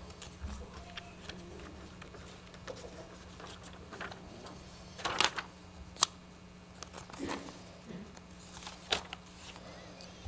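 Quiet room with a steady low electrical hum, broken by soft paper rustling and a few sharp clicks and knocks as pages of a printed report are turned to find a line item.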